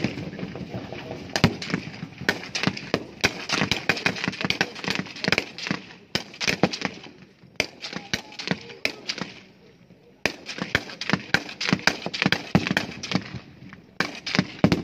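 Several rifles firing in an irregular stream of single shots and quick strings of shots, some overlapping. The firing thins out between about eight and ten seconds in, then picks up again.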